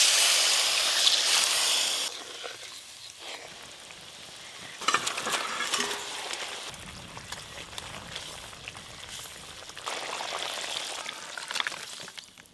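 Water poured into spice paste frying in hot oil hisses loudly for about two seconds, then the masala sizzles more quietly in the pan. Short clinks and scrapes of stirring come at intervals.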